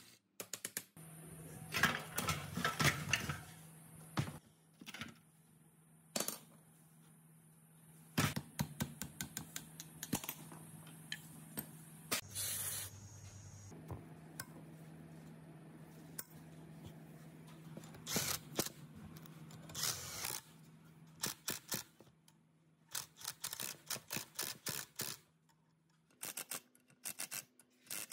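Scattered metallic clicks, taps and scrapes of hand tools working on a rusty concrete vibrator's housing during disassembly, some in short rattling runs, over a faint steady low hum.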